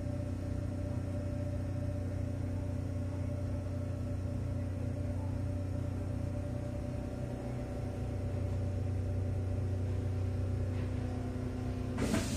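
Kintetsu 6432-series electric train running, heard from inside: a steady rumble with even low humming tones. About twelve seconds in, a sudden loud rush of noise sets in.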